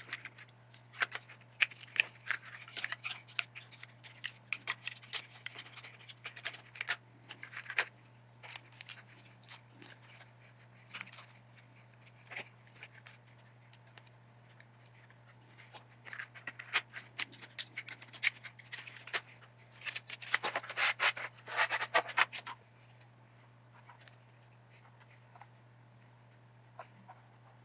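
Straight-edged razor blade in a scraper handle scraping and shaving 3D-printed plastic parts to clean off leftover support material. The quick scratchy strokes come in two spells with a short pause between and die away well before the end.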